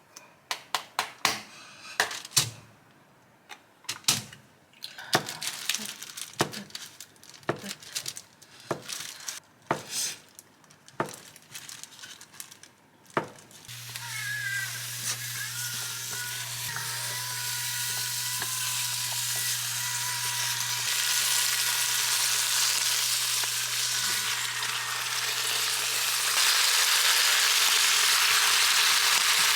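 Sharp kitchen knocks and clatter for the first dozen seconds. Then food starts sizzling in a hot pan, the sizzle steady and growing louder toward the end.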